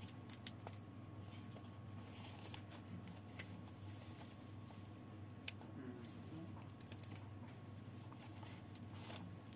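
A few faint, scattered clicks and light handling noises from small parts and tools at a workbench, over a steady low hum.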